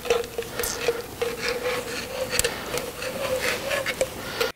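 Metal rubbing and scraping as the cast-iron table of a Famco 5C arbor press is worked against the column, with many small clicks over a steady tone; it stops abruptly near the end.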